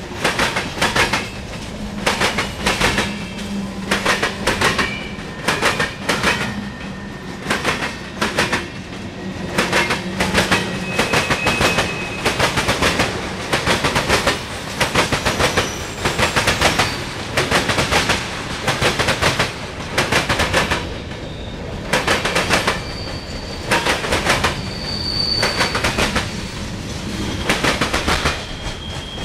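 CSX freight train rolling past, its car wheels clicking over the rail joints in regular clusters about every second. A few brief high wheel squeals rise out of the clatter, one near the middle and more near the end.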